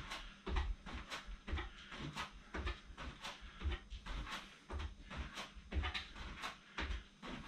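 Bare feet stepping up onto and down from a low wooden plyo box in a steady step-up rhythm, dull thumps about twice a second.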